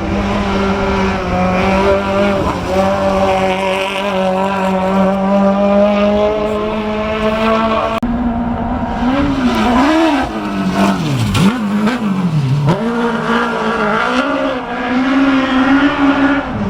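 Off-road racing car engines at high revs. For the first half one engine holds a steady, high-revving note. After a sudden change about halfway, engine notes rise and fall repeatedly as the cars rev and lift off through the corner.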